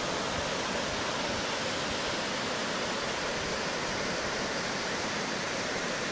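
A waterfall: water rushing steadily down a cascade, an even, unbroken roar of falling water.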